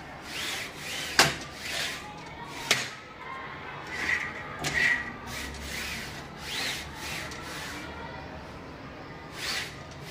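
Pleated mosquito net door being worked along its frame: repeated short swishing rubs of the pleated mesh and its sliding handle, with two sharp clicks in the first three seconds.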